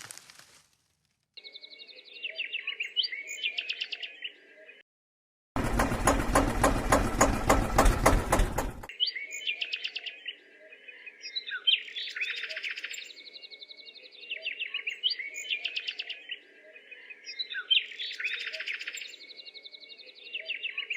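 Birds chirping and tweeting in a pattern that repeats every few seconds. About six seconds in it is cut by a loud, dense three-second burst of sound with a fast, even pulse.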